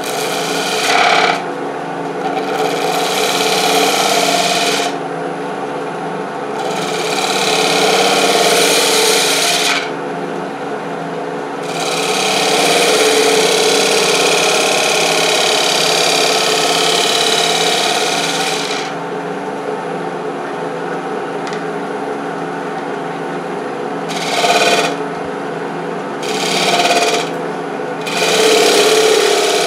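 A wood lathe runs with a steady hum, turning at about 800 RPM, while a turning tool cuts the spinning wooden piece. The cuts come in about six hissing, scraping passes, the longest lasting several seconds in the middle and the last few short and close together near the end.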